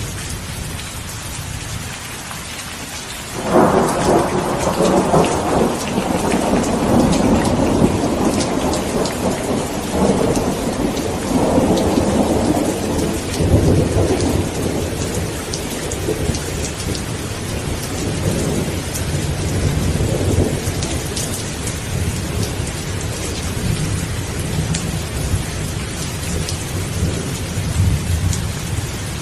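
Thunderstorm: steady heavy rain with a clap of thunder breaking about three and a half seconds in, then rolling and rumbling on in waves while it slowly fades.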